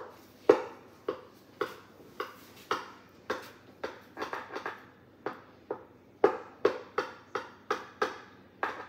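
Large kitchen knife chopping down through a baked lasagna and knocking on the bottom of a glass baking dish: a sharp knock about twice a second, with a few quicker ones midway.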